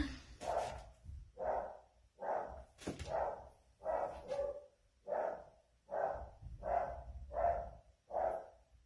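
A dog barking over and over at a steady pace, about one bark a second.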